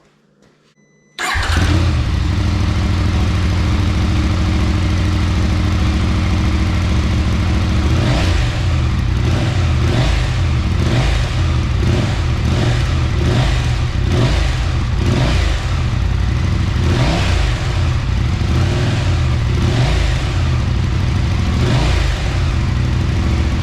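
Husqvarna Norden 901's parallel-twin engine with a Tekmo titanium slip-on exhaust, baffles installed, starting up about a second in and idling. From about eight seconds in it is revved again and again between about 2,000 and 3,000 rpm.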